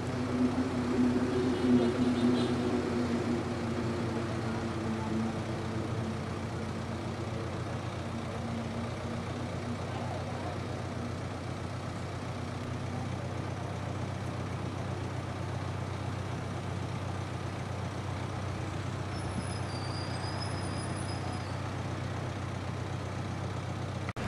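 Minibus engine idling with a steady low hum, a little louder in the first few seconds.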